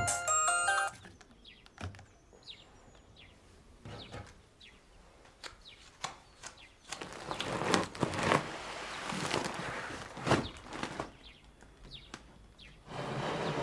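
A mobile phone's ringtone melody cuts off about a second in. Then come faint clicks and a few short high chirps, followed by a run of louder rustles and knocks, and a steady noise rises near the end.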